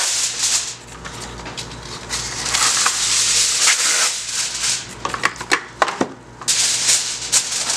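Aluminium foil crinkling and rustling in bursts as a sheet is spread over a disposable foil roasting pan and pressed down around it, with a few sharp crackles about five seconds in.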